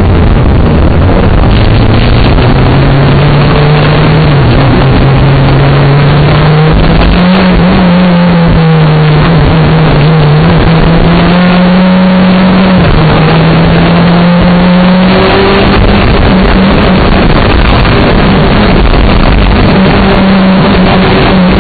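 Rally car engine running hard at speed, its note climbing and dropping back several times with throttle and gear changes, under heavy wind and road noise on the microphone.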